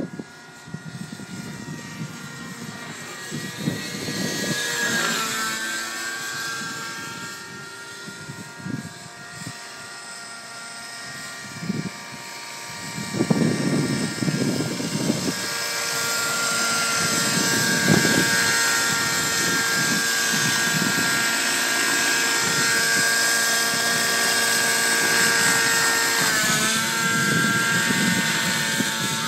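Thunder Tiger Raptor 90 nitro radio-controlled helicopter in flight: the glow engine and rotors make a steady high whine whose pitch sags and recovers as it manoeuvres, notably about five seconds in and again near the end. Low gusts of wind rumble on the microphone now and then.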